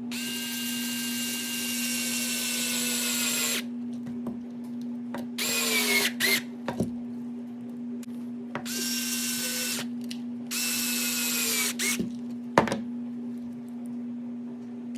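Small cordless electric screwdriver driving screws in four whirring bursts, the motor's pitch dropping as a screw runs tight. A sharp click near the end, and a steady low hum underneath.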